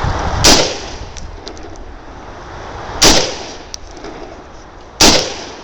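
Three single shots from an AR-15 rifle, about half a second, three seconds and five seconds in, each a sharp crack with a brief echo after it.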